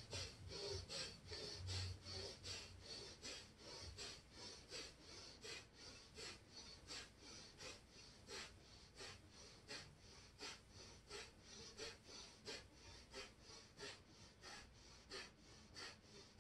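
A person breathing quickly and rhythmically, about two to three sharp breaths a second, faint, in time with a forward-and-back rocking of the pelvis in a kundalini-style breathing exercise.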